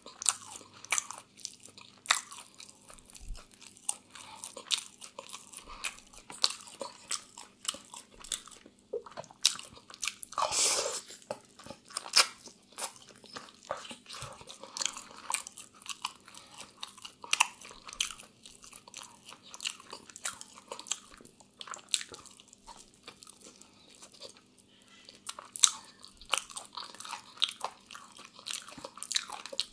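Close-miked eating of grilled chicken by hand: wet chewing and biting with crisp, crunching clicks, and one longer, louder burst of noise about ten seconds in.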